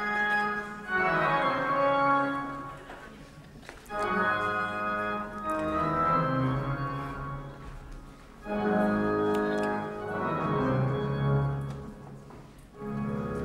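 Organ music in slow, sustained chords. A new phrase comes in about every four seconds, swells and fades away.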